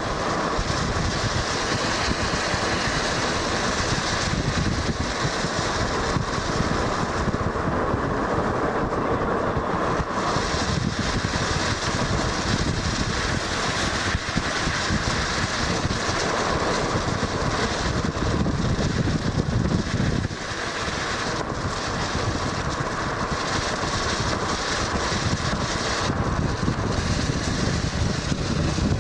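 Steady road and wind noise of a moving car driving at speed.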